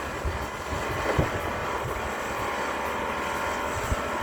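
Heavy construction machinery at a sewer-pipe works, running with a steady engine drone and a few short low knocks.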